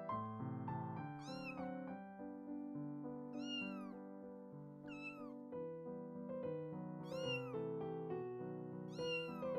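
Kitten meowing five times, short high mews rising and falling in pitch, about every two seconds, over background music.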